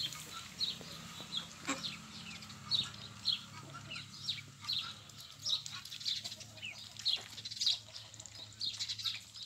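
Small birds chirping: many short, high chirps that drop in pitch, one or two a second, over a faint low steady hum.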